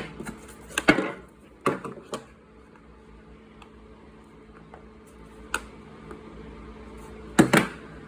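Steel sockets clacking against a magnetic tool bin as they are set in and handled. About six separate metallic clacks come with gaps between them, several close together at first and the loudest near the end.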